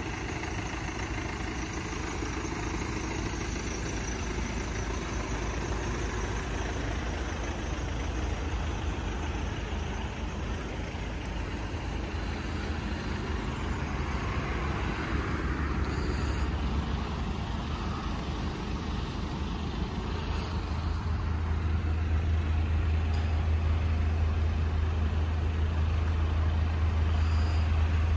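A vehicle engine idling: a steady low hum that grows louder about twenty seconds in.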